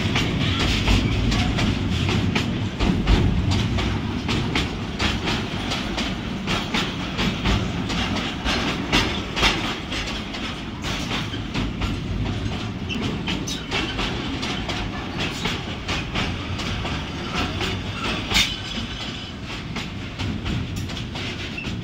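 Railway wheels rumbling and clattering over rail joints as two trains pass side by side, a steady low rumble broken by frequent irregular clicks and clanks. The noise comes in through an open passenger-coach window, with the wagons of a container freight train on flat cars running alongside.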